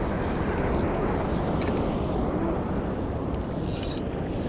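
Steady low rumble of wind buffeting the microphone on a small boat at sea, with water noise around the hull and a short hiss about three and a half seconds in.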